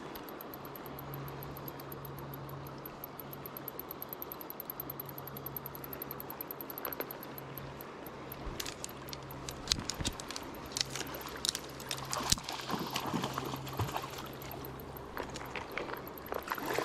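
Spinning rod and reel in use while a hooked fish is played at the water's edge: faint flowing water with a high, rapid ticking. From about eight seconds in comes a run of sharp clicks and light metallic rattles from the tackle being handled.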